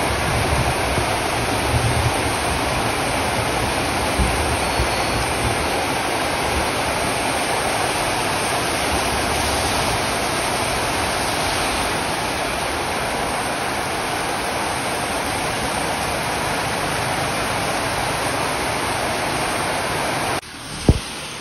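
Heavy rain pouring down steadily on the street and the awning overhead. About 20 seconds in, the rain noise cuts off abruptly, and a single sharp knock follows.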